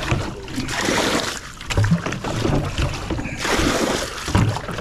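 Legs wading through shallow floodwater, the water sloshing and splashing in irregular surges with each step.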